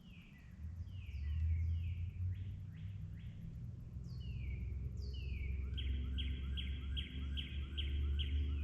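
Songbirds singing in a dawn chorus: clear whistled notes that slide downward, repeated, then from about two-thirds of the way through a quick run of evenly repeated notes, about two a second. Underneath, a steady low rumble comes in about half a second in and is the loudest part.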